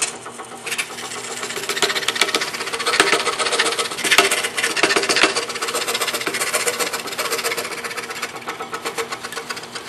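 DeWalt scroll saw running, its fine blade stroking rapidly up and down and rasping through thin wood over a steady motor hum.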